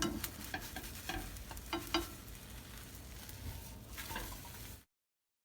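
Food sizzling in a frying pan, with several light clicks of a utensil in the first couple of seconds; the sound cuts off abruptly near the end.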